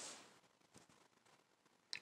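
Near silence: room tone, with a soft hiss at the start and a sharp click right at the end.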